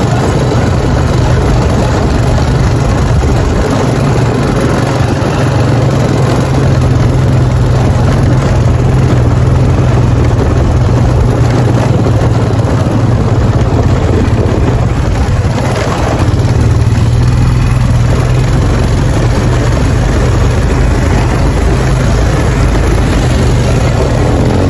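Motorcycle engine running steadily while riding a dirt road, under a constant rush of wind and road noise; the engine eases off briefly about two-thirds through.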